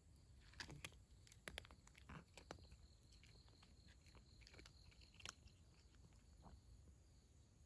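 A cat eating dry kibble: faint, crisp crunching and chewing, thickest in the first couple of seconds, with a few more crunches later.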